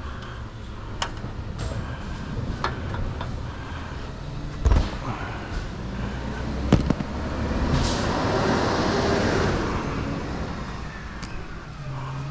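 Road traffic with a steady engine hum, a vehicle passing and fading about eight to ten seconds in, and scattered sharp knocks and clicks, the loudest near five and seven seconds in.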